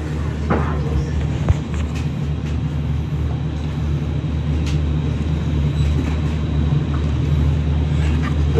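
A steady low mechanical rumble, with a few faint clicks and knocks over it.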